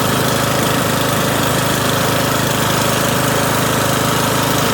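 Small vehicle engine running steadily at a constant pitch and level.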